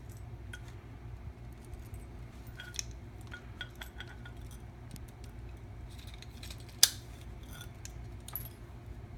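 Light clicks and small metallic clinks of guitar-pedal hardware being handled, over a steady low electrical hum from the still-powered pedal setup; one sharper click comes about two-thirds of the way through.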